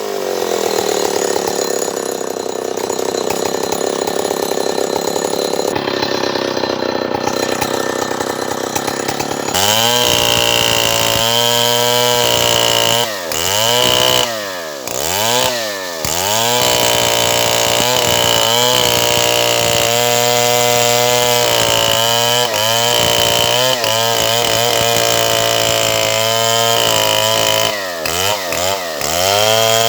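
Stihl 070 two-stroke chainsaw running. Its note holds lower for the first few seconds, steps up in pitch about ten seconds in, then eases off briefly a few times, once around the middle and again near the end.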